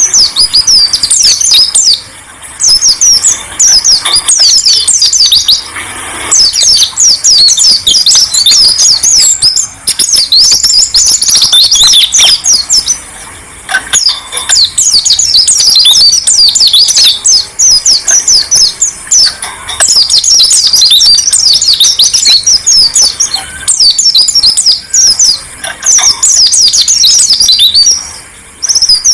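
Songbird singing long phrases of rapid, high twittering notes, broken every few seconds by short pauses.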